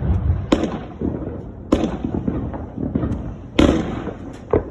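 Aerial fireworks going off: four sharp booms over a few seconds, the third the loudest, with a rumbling crackle of the bursts between them.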